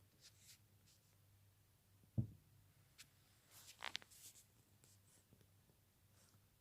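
Near silence, broken by a soft low thump about two seconds in and one short breathy snore from a sleeping animal about four seconds in.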